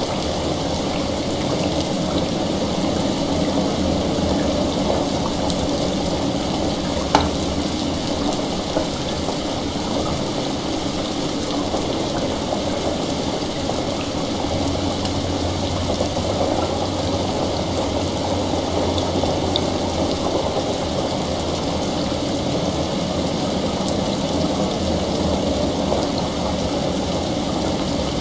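Steady heavy rain with running water beneath it and the crackle of a fire, with one sharp pop about seven seconds in.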